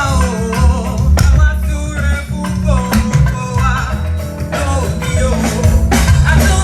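Church band playing a processional hymn: singing voices over bass guitar and drums with a steady beat.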